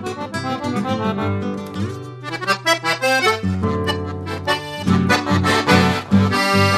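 Background music led by accordion, with a regular bass pulse coming in during the second half.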